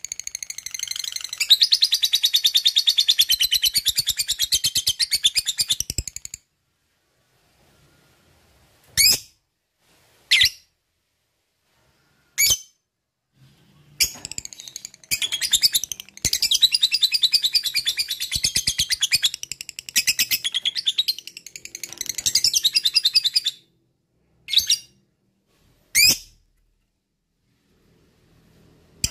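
Rosy-faced lovebird giving its long, fast, chattering trill (ngekek) twice, each run lasting several seconds. Single short, sharp, rising chirps fall in the pauses between the runs and after the second one.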